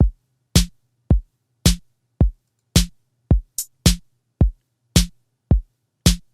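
Electronic drum-machine beat with no vocals: a kick drum and a bright snare or clap alternating, one hit about every half second, over a faint low hum.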